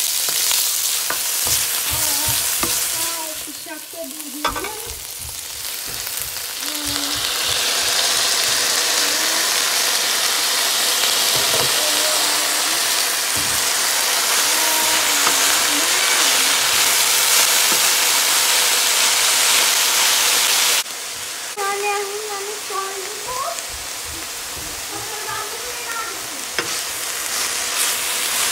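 Onions and green chillies frying in hot oil in a metal pan, then chopped kale sizzling as it is stirred with a spatula. The sizzle dips a few seconds in, runs loud, and drops suddenly to a lower level about three quarters of the way through.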